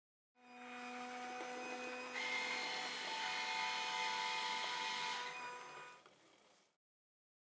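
A SHAKER S protein vending machine's dispensing mechanism whirring with a steady hum as it fills a shaker cup. About two seconds in it gets louder and higher-pitched, and it stops about six seconds in.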